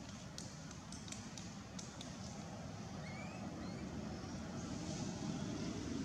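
Steady low outdoor rumble, like distant traffic or wind, growing slightly louder, with a faint short rising chirp about three seconds in.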